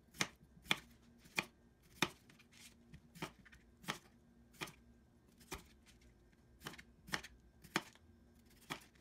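Kitchen knife slicing thin rounds off small red potatoes, each stroke ending in a sharp tap on the cutting board: about a dozen separate cuts at an unhurried pace.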